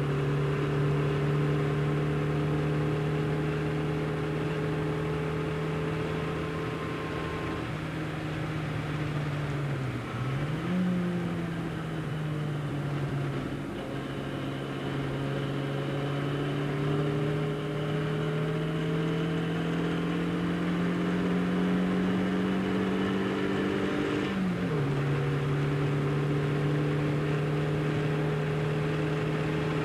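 A tuned 1275cc Austin-Healey Sprite engine with a large-bore exhaust, heard from inside the cabin while driving hard on track. The engine note climbs slowly under load and drops sharply at gear changes about ten seconds in and again about 25 seconds in, then climbs again.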